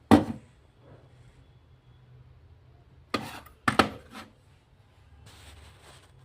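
Knocks from something hard being handled: a sharp knock at the start, then two more a little over three seconds in, over a low background hum.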